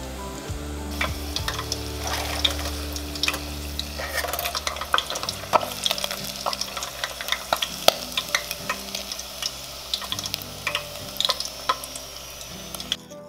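Battered tofu deep-frying in hot oil, a dense crackling sizzle, with sharp clicks and scrapes of a metal skimmer against the stainless fryer pot as the pieces are scooped out. The sound cuts off suddenly near the end.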